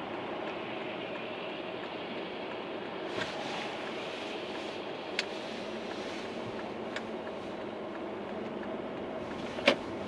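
Steady road and engine noise heard from inside a moving car, with a few sharp clicks, the loudest near the end.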